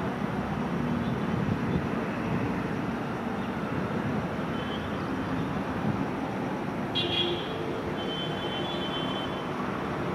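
Steady low rumble of background traffic and a distant approaching train. About seven seconds in comes a short high toot, followed by a thin steady horn-like tone lasting about a second and a half.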